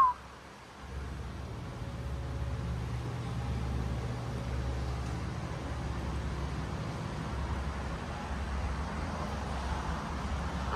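Steady low background rumble and hum, opening with the falling end of a whistle.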